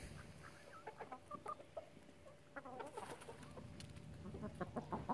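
Backyard chickens clucking quietly, many short calls scattered through, with a few sharp ticks in the second half.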